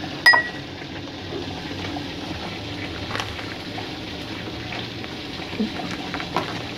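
Thick peanut sauce simmering in a wok, a steady soft bubbling with small pops. A single sharp clink rings briefly about a quarter second in.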